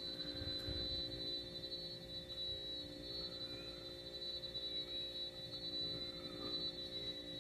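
Faint steady hum made of several constant tones, with a thin high whine above them, unchanging throughout.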